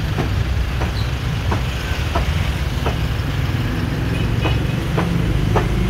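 Cleaver chopping meat on a wooden block, a sharp knock about every two-thirds of a second, over a steady low rumble of street traffic.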